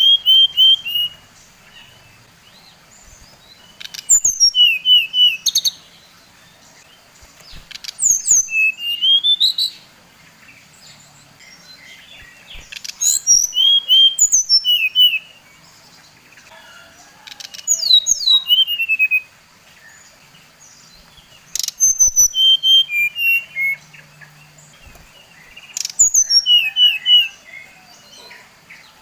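Bali SRDC songbird singing in short bursts about every four seconds: quick runs of high chirps and sharp down-slurred notes, each burst lasting a second or two. The song is used as a lure to stir other SRDC birds into singing.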